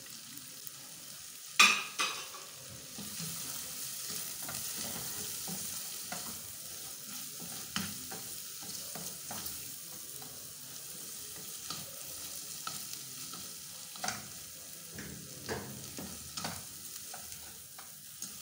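Diced tomato, pepper and onion frying in oil in a stainless steel pot, a steady sizzle, while a spoon stirs and scrapes through it. Two sharp knocks on the pot come about a second and a half in, the loudest sounds, and a few lighter clicks of the spoon on the pot follow.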